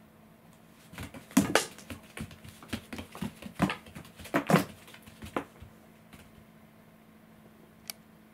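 A cat's paws scrabbling and thumping on interlocking floor mats as it spins chasing its own tail: a quick run of scuffs and knocks lasting about four seconds, then stillness, with one small click near the end.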